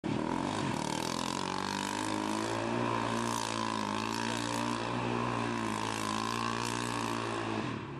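Quad ATV engine held at high revs while spinning its rear wheels in the dirt, a steady, slightly wavering drone that drops off just before the end.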